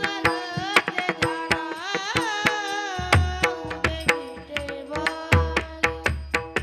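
Varkari bhajan music: a singer's melodic line over a held drone, with quick hand-drum and percussive strokes. Deep bass drum strokes join about three seconds in.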